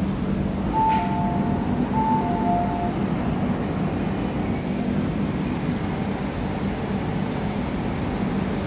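MTR Kwun Tong Line Q-train running through a station platform without stopping: a steady low rumble of the passing cars, heard behind platform screen doors. A few short steady high tones, in two alternating pitches, sound about a second in.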